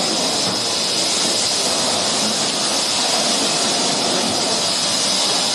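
Steady, loud hiss of escaping steam from the BR Standard Class 7 'Britannia' steam locomotive No. 70013 Oliver Cromwell as it moves slowly past, with no distinct exhaust beats.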